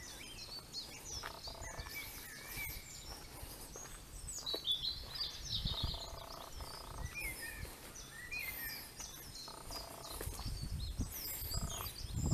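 Small birds singing and chirping from the trees and hedges, many short quick calls overlapping. Beneath them a low rumble that grows louder near the end.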